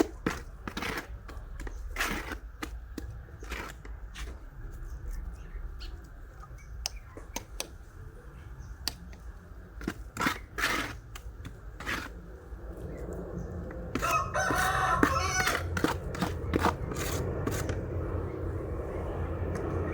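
A rooster crowing once, about two-thirds of the way through, for about a second and a half, over scattered sharp clicks and taps and a low steady hum.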